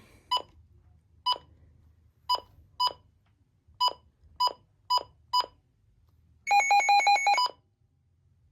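Midland WR100 weather alert radio beeping as its buttons are pressed during setup: eight short single beeps at uneven intervals, then a rapid two-tone warbling beep lasting about a second.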